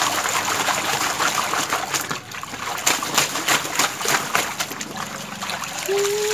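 A cloth towel being worked by hand in a plastic basin of soapy water: repeated splashing, with water trickling and dripping back into the basin as the towel is lifted.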